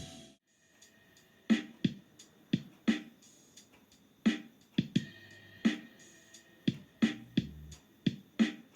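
Electronic music played through a Mivi Play portable Bluetooth speaker. A brief gap near the start, then a drum-machine beat of sharp hits, with bass notes coming in near the end.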